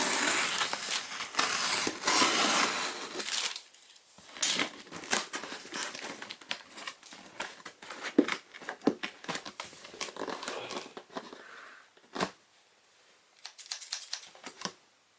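Shipping packaging being cut and torn open: a few seconds of continuous tearing and crinkling, then scattered crackles and clicks as the wrapping is handled, with one sharp click about twelve seconds in.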